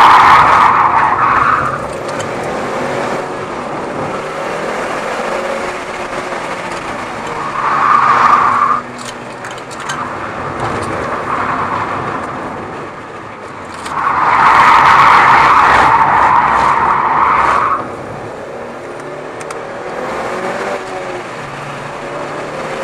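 Mitsubishi Lancer Evolution VIII's tyres squealing through corners, on old, hardened slick tyres: three squeals, one at the start, a short one about 8 seconds in, and a long one from about 14 to 18 seconds. Between the squeals the car's turbocharged four-cylinder engine runs under load.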